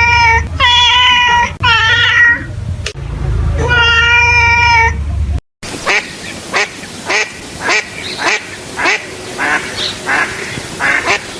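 A few short pitched animal calls over a low rumble. Then, after a cut, a duck quacks over and over, about two to three quacks a second.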